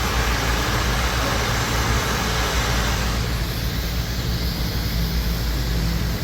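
CNC plasma cutting table running: a steady hiss over a low electrical and mechanical hum. The hiss eases about three seconds in.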